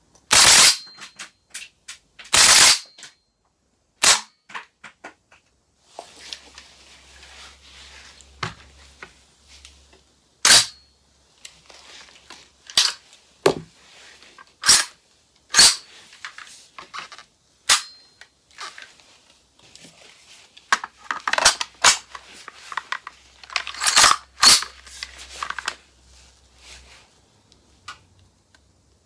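Gas-powered airsoft M14 rifle firing: sharp cracks of gas discharge and bolt cycling, spaced irregularly at first and coming closer together in a quicker run near the end, with light mechanical clicks between shots. The two loudest shots come in the first three seconds.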